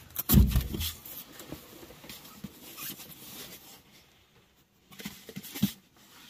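Objects being handled and moved about: a heavy thump about half a second in, then light rustling and scattered knocks, with a sharper knock near the end.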